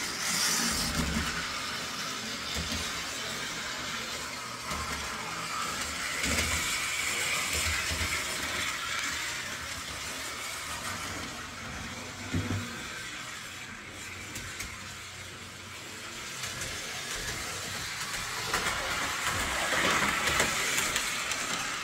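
O-27 toy electric steam locomotive running on its track under conventional transformer power: a steady motor whir and wheel rumble that swells and fades as it circles. It is running smoothly, freshly cleaned and lubricated.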